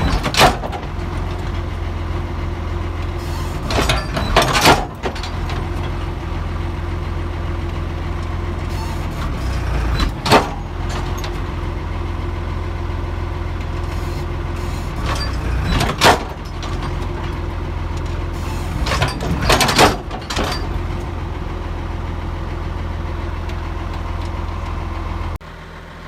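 Tractor engine running steadily, powering the hydraulic hoist that tips the dump wagon box, with half a dozen sharp knocks spread through. The engine sound drops off abruptly just before the end.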